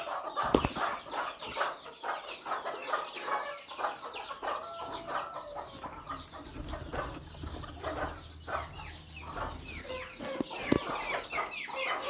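Chickens clucking and calling, many short overlapping calls at once, with a couple of dull knocks.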